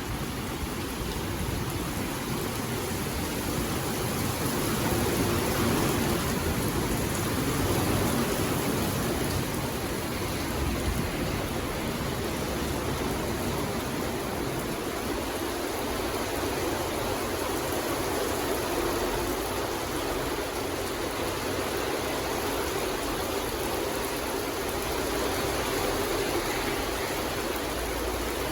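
Steady rain falling, an even hiss of water without separate drops or thunder.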